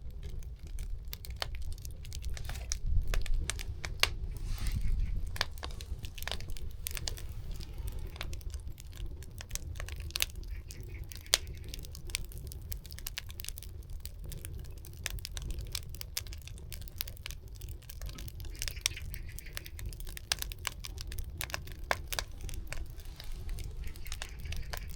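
Burning firewood crackling, with many irregular sharp pops over a low, steady rumble.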